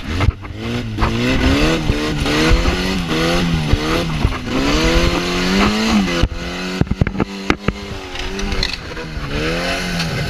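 Small engine of a gaiola (cage-frame buggy) revving up and down over and over, its pitch rising and falling with each blip of the throttle. A rattle of sharp knocks comes in about two-thirds of the way through.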